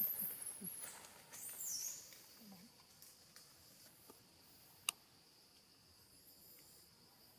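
Dry fallen leaves rustling as macaques scamper across the forest floor, loudest in the first two seconds and then fading. A faint steady insect drone runs underneath, with a single sharp click about five seconds in.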